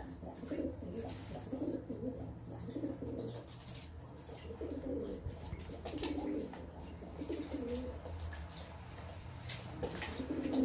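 Domestic pigeon cooing over and over, a low, repeated coo. There are light water splashes from birds in a basin, and a flurry of wing flaps near the end.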